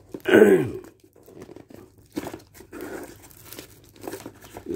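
A cardboard parcel and its plastic wrapping being torn open by hand: a loud, short rasp that falls in pitch about half a second in, then irregular crinkling and tearing.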